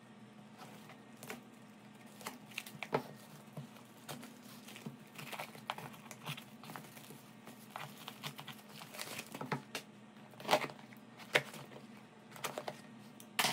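A phone delivery package being unwrapped by hand: irregular crinkling and tearing of plastic wrapping and bubble wrap, with several sharper crackles and knocks.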